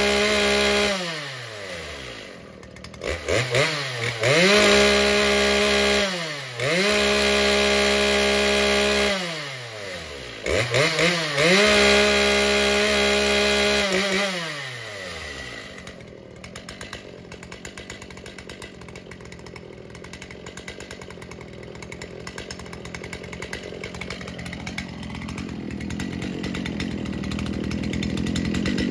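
Two-stroke chainsaw at full throttle for two to three seconds at a time, then dropping back toward idle, four times over. After that it idles low. It is tuned rich ('way fat'), turning only about 11,000 rpm wide open.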